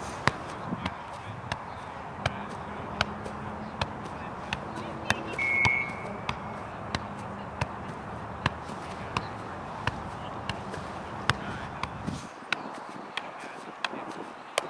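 A soccer ball being juggled: sharp taps of foot and knee on the ball, evenly spaced at about three touches every two seconds. A brief high-pitched tone sounds about five seconds in.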